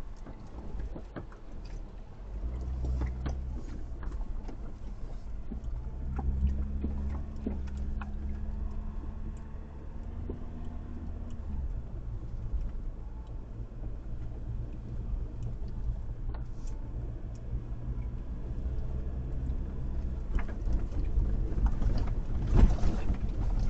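Car engine running while driving, its note changing about two seconds in and again near the middle, with scattered knocks and rattles over it.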